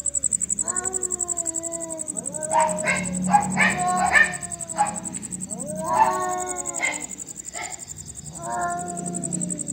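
Two cats yowling at each other in a fight standoff: long, drawn-out, wavering yowls that sag in pitch, with a stretch of harsher, broken screeches around the middle.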